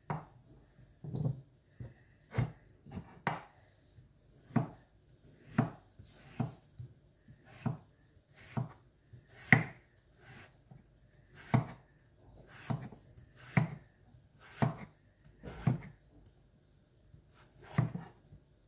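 Chef's knife slicing a raw potato for hasselback potatoes, about one cut a second, each stroke ending in a short knock as the blade meets the wooden spoon and spatula handles set beside the potato to stop it cutting through.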